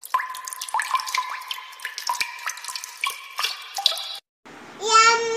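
Logo-intro sound effect: a rapid scatter of small tinkling pings and clicks, like dripping water, for about four seconds. After a brief break, a short high-pitched melodic phrase follows.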